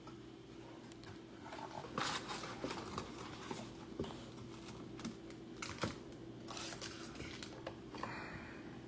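Trading card box being opened and its wrapped packs handled: scattered light taps, clicks and crinkles over a faint steady hum.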